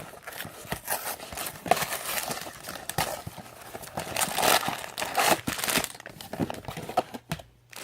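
A LEGO set's cardboard box being torn open and the plastic bags of small parts inside crinkling as they are handled: irregular rustling and crackling with small tearing sounds, pausing briefly near the end.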